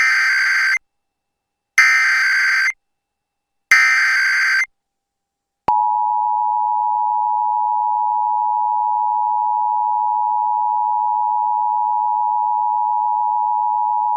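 Emergency Alert System broadcast: three bursts of SAME header data, each about a second long with short gaps between them, then the two-tone EAS attention signal (853 and 960 Hz sounded together) held steady for about eight and a half seconds. It is the opening of a required monthly test alert.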